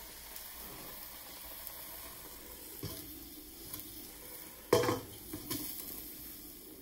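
Shredded red cabbage sizzling steadily in a stainless steel sauté pan. About two-thirds of the way through, a steel-rimmed glass lid is set down on the pan with a sharp clank, followed by a lighter knock.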